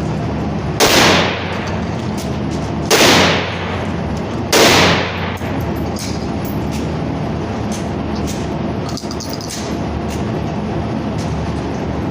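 Three single gunshots at a shooting range, the second about two seconds after the first and the third about a second and a half later, each trailing off in a short echo, over a steady low rumble.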